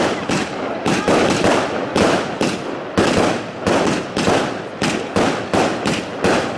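Aerial fireworks going off in a rapid, even series of bangs, about two a second, with crackling between the bursts.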